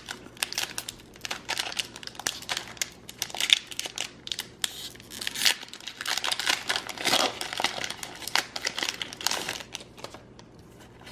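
A foil Pokémon trading-card booster pack wrapper being torn open and crinkled by hand: a dense, irregular crackle of plastic foil that dies down near the end as the cards come out.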